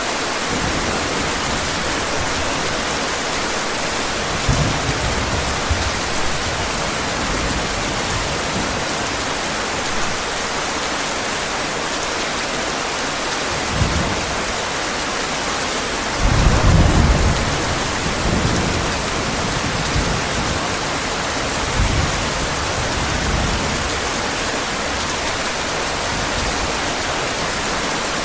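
Heavy rain falling steadily, with low rolls of thunder rumbling under it several times. The longest and loudest roll comes a little past the middle.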